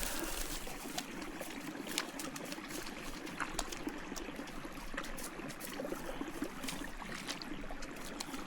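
Water trickling and running in a small stream, with scattered short clicks throughout.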